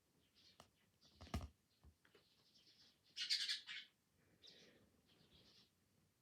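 Faint breathy sniffs and small rustles with a soft click or two, from a nose being tickled with a twisted paper string as a sneeze builds. The loudest is a short hissing sniff about three seconds in.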